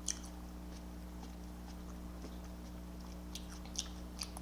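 Faint chewing with a few soft, wet mouth clicks, over a steady low electrical hum.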